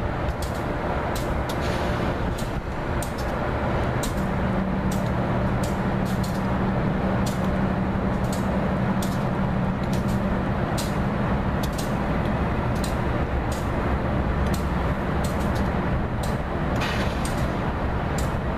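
GE P32AC-DM Genesis diesel locomotive running as it slowly tows a single Amfleet coach. Its engine makes a steady drone that is stronger for several seconds in the middle, with frequent short sharp clicks over it.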